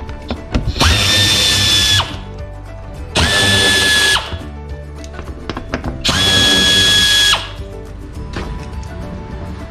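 Small right-angle air tool spinning out the screws of a car's plastic engine undercover. It runs in three bursts of about a second each, with a steady high whine and hiss, over background music.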